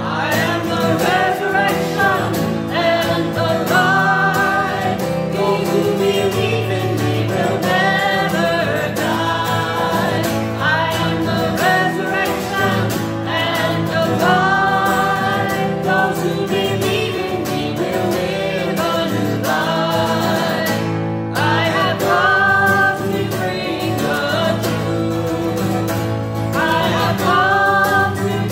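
Small group of singers, a man and women together, singing a song to two strummed acoustic guitars.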